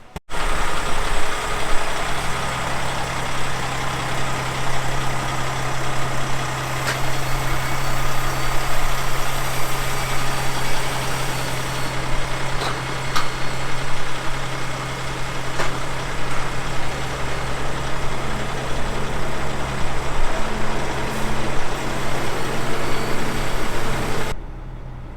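Grain truck's diesel engine running steadily with a constant low hum, a few light clicks over it.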